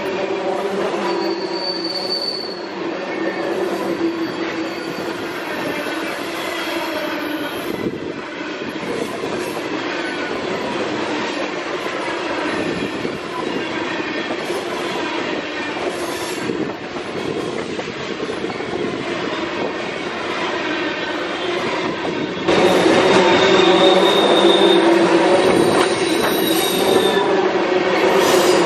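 Freight train of loaded ethanol tank cars rolling past, with steel wheels clicking over rail joints and squealing against the rails at times. It gets suddenly louder and closer about three-quarters of the way through, with a longer wheel squeal after that.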